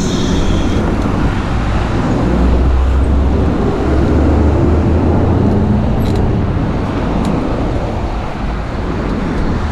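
Steady road traffic noise with a strong low rumble, heard from a bicycle riding along a city road.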